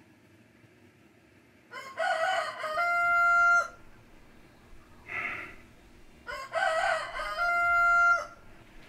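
A rooster crowing twice, the crows about four and a half seconds apart, each ending in a long held note. A brief, softer noise comes between them.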